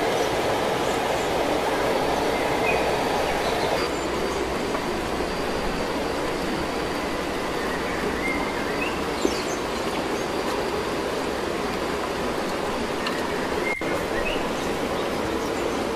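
Steady rushing noise of running water, like a nearby stream, with a few faint bird chirps and one brief click about nine seconds in.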